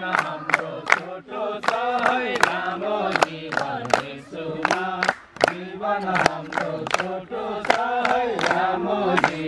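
A group of men and women singing a song together, clapping their hands in a steady beat about two to three claps a second.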